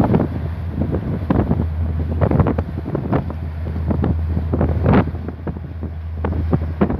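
Wind buffeting a phone's microphone in irregular gusts on the open deck of a moving search-and-rescue ship, the strongest gust about five seconds in. Under it runs the steady low drone of the ship's engines, with the rush of water along the hull.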